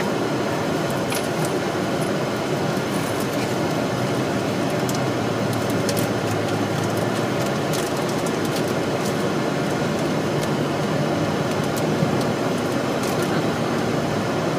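Steady road and tyre noise with engine hum, heard from inside a car's cabin cruising at highway speed, with occasional faint clicks.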